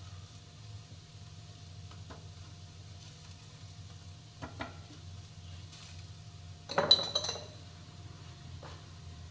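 A metal spatula tapping and scraping on a nonstick frying pan holding a chickpea-flour pancake, with a few light clicks and one louder metallic clatter about seven seconds in. A low steady hum runs underneath.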